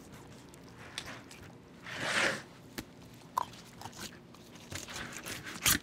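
An 8-inch Dexter fillet knife cutting through a snook's scaled skin and rib bones: quiet crunching and scraping strokes, with one longer rasping cut about two seconds in. A sharp knock near the end.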